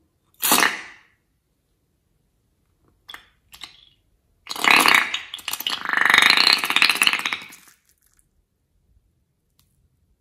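A short burst as scissors cut the neck of a slime-filled rubber balloon, then, about four and a half seconds in, slime squeezed out of the balloon's opening into a glass bowl with a long, rapidly sputtering squelch lasting about three seconds.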